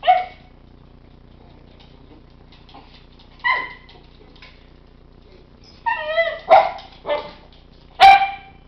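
Miniature schnauzer barking in short, sharp single barks: one at the start, one a few seconds later, then a quicker run of several barks near the end, one of them a wavering, whiny yelp. These are excited barks at the owner, begging to be taken along for a car ride.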